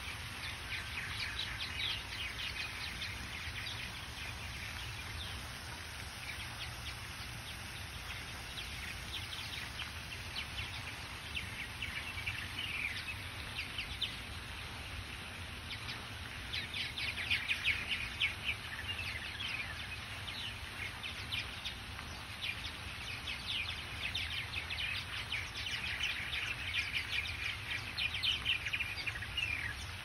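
A flock of purple martins chirping and chattering in several bouts of rapid calls, over a steady low background hiss.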